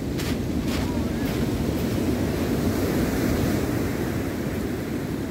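Sea surf breaking and washing on a pebble beach, mixed with wind buffeting the microphone in a steady low rumble. A couple of crunching footsteps on the pebbles sound in the first second.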